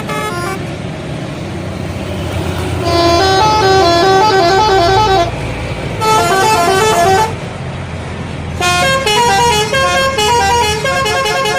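Indonesian bus telolet horn playing three runs of quick, stepped musical notes, the first starting about three seconds in, over the low, steady running of the bus's engine.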